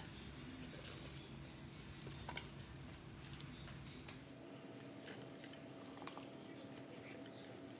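Faint soft patter and rustle of shredded carrot and radish being dropped by a gloved hand onto cucumber pieces in a glass baking dish, with a few small clicks, over a low steady hum.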